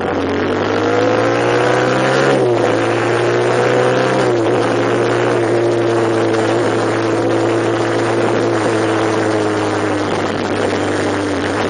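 A vehicle's engine accelerating. Its pitch rises, drops sharply about two seconds in as it shifts up a gear, rises again and drops once more near four seconds, then eases slowly down as the vehicle slows.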